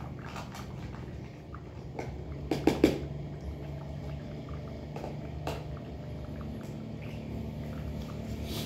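A metal spoon knocking and scraping in a tin of wet cat food as it is served out, with a few sharp knocks, loudest about three seconds in, over a low steady hum.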